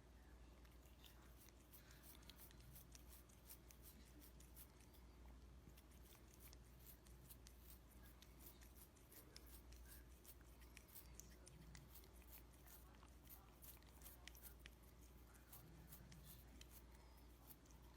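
Faint, quick crunching clicks of a cat chewing food, coming more densely in the second half, over a low steady hum.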